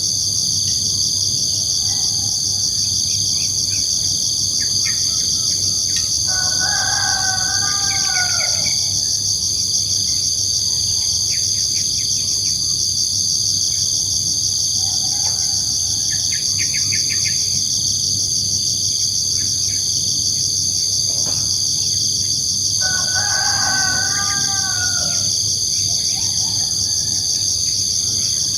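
A steady, shrill chorus of crickets runs throughout. A rooster crows twice, well apart, each crow a drawn-out call that rises and then falls. A few short bird chirps come in between.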